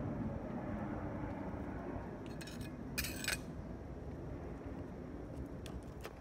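Outdoor ambience of a low rumble slowly fading, with a short clinking rattle about three seconds in and a few faint ticks near the end.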